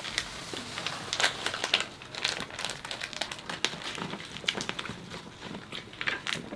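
Mealtime eating sounds: chewing and handling food at the table, heard as a run of irregular small clicks and crinkles.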